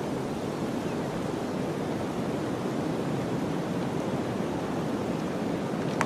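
Blizzard wind blowing steadily through a forest, an even rushing noise with no gusts or breaks.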